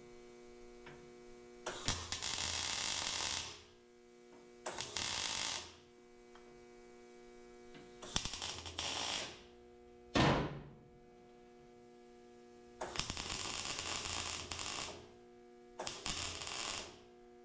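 Welder on sheet-steel floor pan, five short crackling welds of one to two seconds each with pauses between, over a steady electrical hum. One sharp loud knock about ten seconds in.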